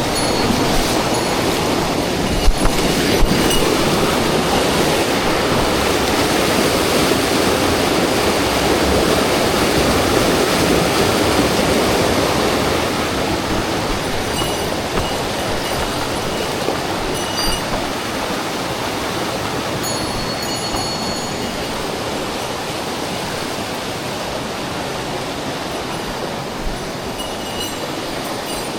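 Mountain stream water rushing steadily over rocks close by, a loud even rush that eases slightly about halfway through. Two sharp knocks come a few seconds in.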